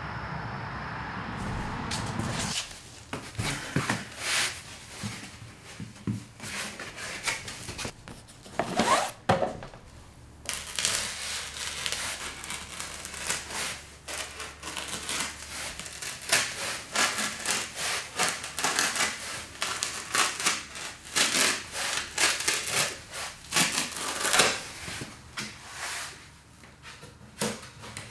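Knife sawing through a foam swimming-pool noodle in many back-and-forth strokes, the foam rubbing against the blade. The first couple of seconds hold only a steady background hum before the cutting starts.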